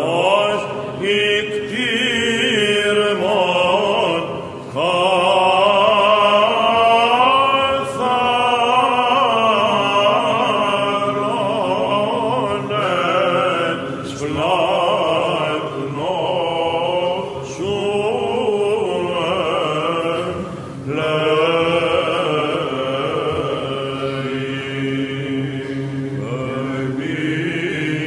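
Byzantine chant (psaltiki) by male chanters: a slow, melismatic melody winding over a steady held drone (the ison). The line is broken by short breaks between phrases.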